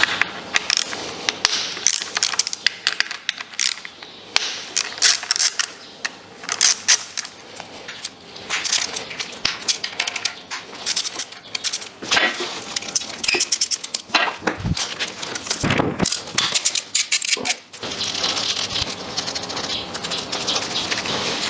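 Ratchet wrench clicking in quick runs and metal clinks of bolts and parts being handled while the 10 mm bolts of the VVT assembly are undone on the engine's valve cover. A couple of dull thumps come a little past the middle, and a steady hiss sets in for the last few seconds.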